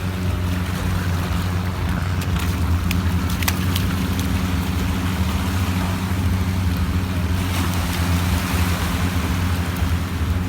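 Boat engine running steadily with an even, low drone, with water and wind rushing over it.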